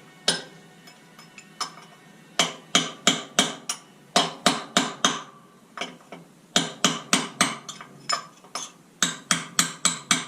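Hammer striking metal in quick runs of four or five ringing blows, knocking back the bent-over locking tabs on the transmission bolts of a John Deere 480 forklift.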